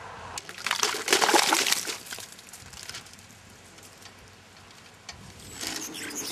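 A big wet splash and splatter of thick white liquid dumped over a person, starting under a second in and lasting about a second and a half.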